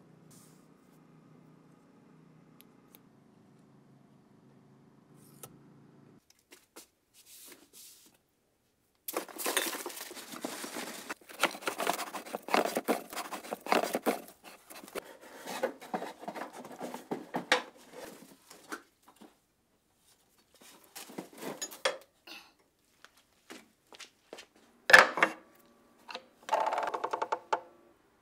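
Light metallic clinking and rattling of small metal objects in irregular bursts, heaviest in the middle, then a few separate sharp clicks near the end. A faint low hum comes first.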